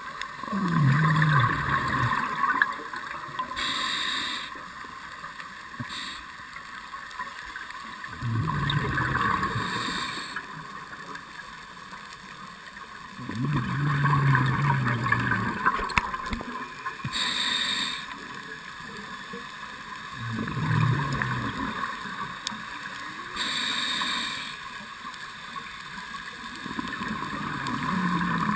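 A scuba diver breathing through a regulator: about five slow breath cycles, each with a loud stretch of bubbling and hissing with a low wavering tone, then a short high hiss, about every six to seven seconds. The uneven breathing is taken by the uploader as a sign of the diver shivering with cold.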